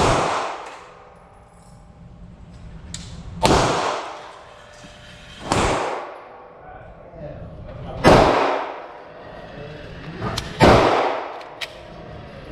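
Glock 17 9mm pistol firing five single shots, spaced about two to three seconds apart, each followed by a ringing echo that dies away within about a second. A few faint sharp clicks fall between the shots.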